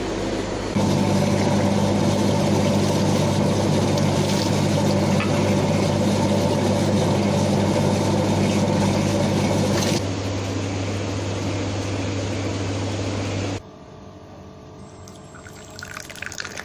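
A stream of water running steadily while a glass is rinsed under it, over a steady low hum. Near the end, tea is poured into a glass.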